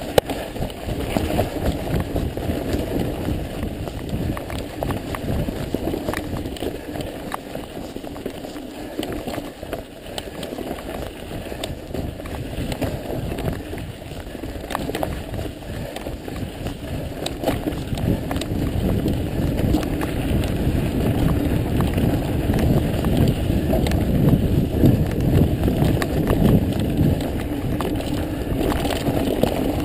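Mountain bike riding a dirt singletrack, heard from a helmet camera: steady tyre and rumbling noise with frequent rattles and clicks from the bike, getting louder in the second half.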